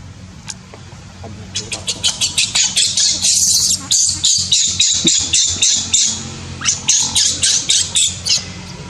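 Baby macaque screaming in a rapid run of short, shrill calls, several a second, starting about a second and a half in, with a brief break near six seconds.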